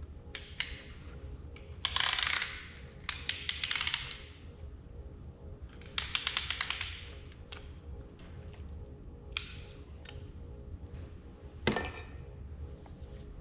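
Piston ring compressor being wrapped and ratcheted tight around a piston, heard as bursts of rapid clicking and scraping. There is a sharp metal clink near the end.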